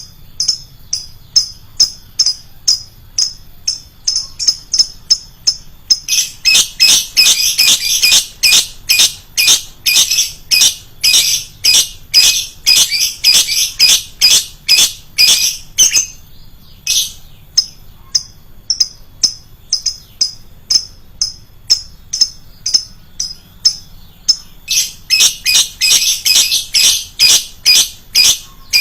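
Lovebird calling in rapid, shrill, repeated chirps, about three a second, growing louder and denser for a long stretch in the middle and again near the end.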